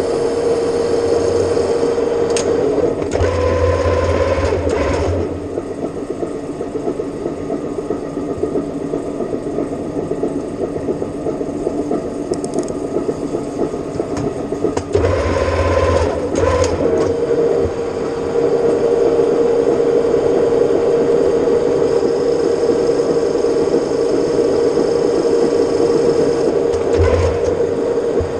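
Metal-turning lathe running with a steady hum, with two louder spells of a few seconds, about three seconds in and again about fifteen seconds in.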